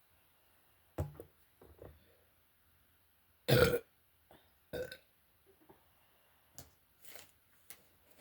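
A person's gassy burp about three and a half seconds in, loud and short, followed about a second later by a second, shorter burp, with a few faint brief sounds before and after.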